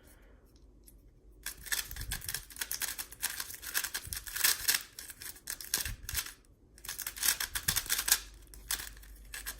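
GAN 356 i speed cube being turned fast during a timed solve: a dense run of plastic layer clicks starting about a second and a half in, with a brief pause about two-thirds of the way through.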